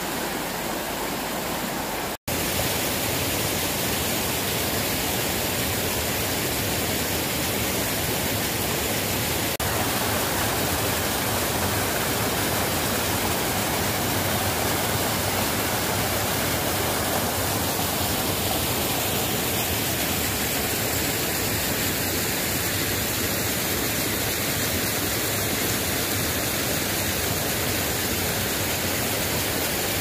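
Steady rush of a fast mountain stream and small waterfall cascading over mossy boulders, with a momentary break about two seconds in.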